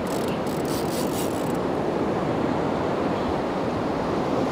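Steady wind on the microphone over the wash of the sea around a small open boat, with faint high ticks in the first second and a half.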